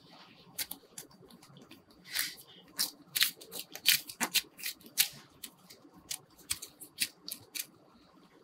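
Play dough being squeezed and kneaded between the fingers: a run of irregular sticky crackles and clicks, thickest in the middle and dying away near the end.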